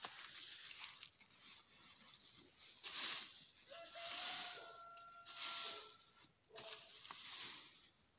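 Rake scraping and rustling through a deep layer of dry fallen leaves in repeated strokes. A rooster crows once in the background, about halfway through, in one long, fairly even call.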